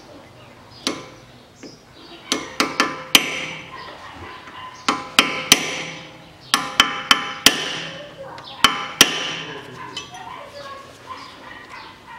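Sharp metal-on-metal taps and clicks in short clusters of two to five, each with a brief ring, as a steel screwdriver works a cotter pin into the drive-shaft nut at the front wheel hub.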